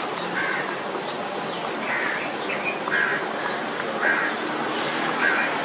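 Crows cawing in a series of short calls, about one a second, over steady outdoor background noise.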